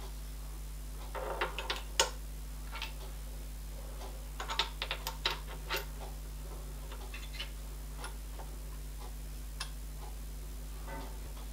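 Light metal clicks and clinks of a small steel workpiece being handled and seated in a milling machine vise. They come in two clusters, about a second in and around five seconds in, with the sharpest click at about two seconds. A steady low hum runs underneath.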